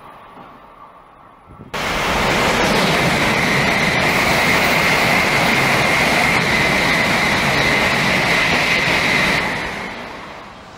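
Shinkansen bullet train passing close at speed: a loud, steady rush of air and wheels on rail with a steady whine running through it. It cuts in abruptly about two seconds in and fades over the last second or so.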